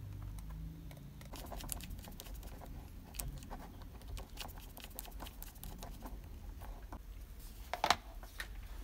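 Faint, irregular clicks and ticks of small plastic parts and wire being handled: wire ends pushed into a female DC barrel socket's screw terminal and its tiny screws turned with a small screwdriver. A couple of sharper clicks near the end.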